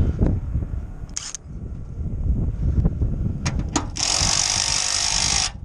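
Compressed air hissing from an air nozzle in two blasts, a short one about a second in and a steadier one of about a second and a half near the end, with a few sharp clicks between them. Low wind rumble on the microphone underneath.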